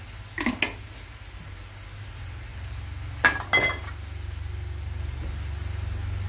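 Metal spatula clinking and scraping against a steel wok while stir-frying chicken with curry herbs: two pairs of short ringing strikes, about half a second in and again about three seconds later, over a steady low hum.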